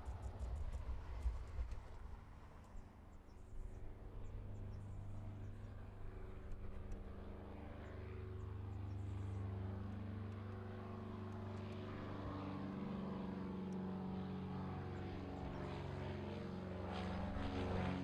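Britten-Norman BN-2 Islander's twin propeller engines humming steadily as the plane flies low overhead, growing louder toward the end.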